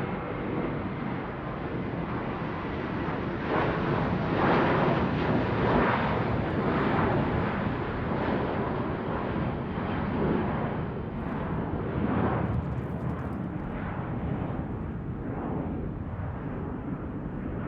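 Airplane flying overhead: a broad, deep rumble that swells to its loudest about four to seven seconds in, then slowly eases off as it passes.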